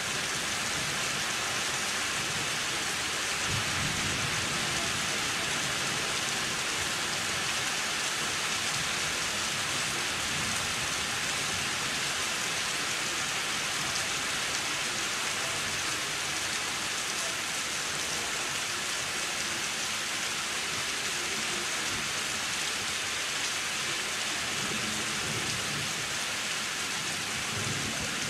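Heavy rain falling steadily during a severe thunderstorm, with low rumbles of thunder about four seconds in and again near the end.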